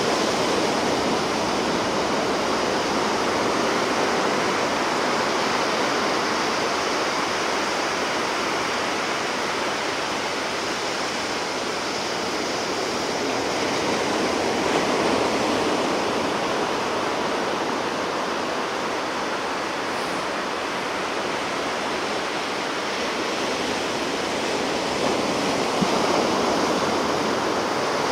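Ocean surf breaking and washing onto the shore: a continuous rush of water that swells and eases slowly, roughly every ten seconds.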